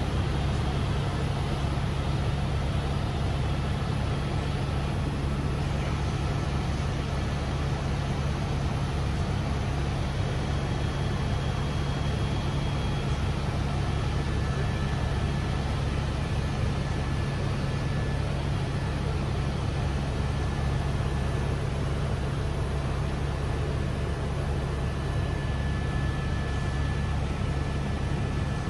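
Steady, unchanging low rumble and noise of a moving vehicle as heard from inside, with a few faint steady whining tones over it.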